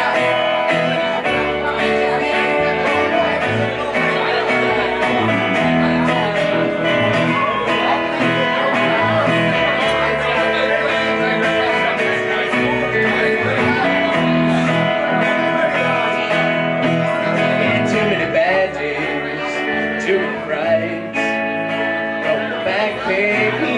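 A live country band playing: electric guitar and acoustic guitar over a plucked upright double bass, with no words sung.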